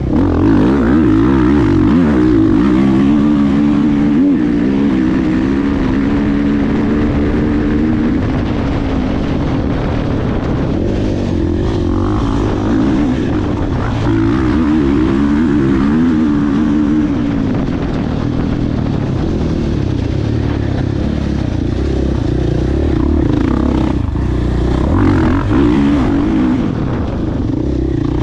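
Dirt bike engine being ridden hard on a dirt track, its revs rising and falling over and over as the rider works the throttle and gears.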